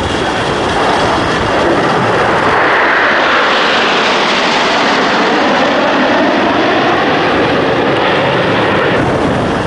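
Loud aircraft engine noise from vintage propeller warbirds, among them a P-51 Mustang, taxiing close by. It is a dense, steady rush whose pitch shifts slowly as the aircraft pass.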